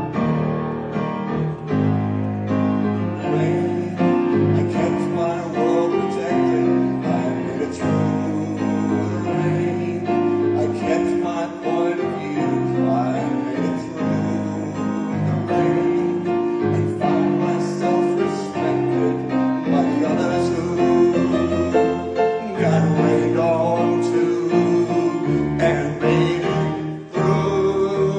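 Choir singing with piano accompaniment, holding long notes.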